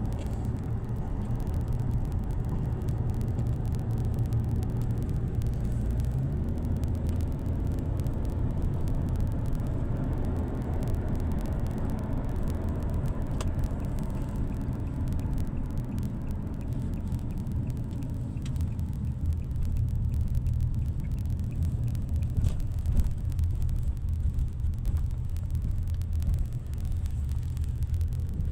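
Steady low rumble of a road vehicle in motion, with the engine sound rising and falling slightly.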